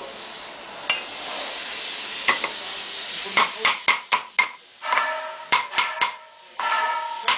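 A steady hiss, then from about three seconds in a rapid series of sharp metal-on-metal strikes, each leaving a bright ringing tone, coming in quick clusters.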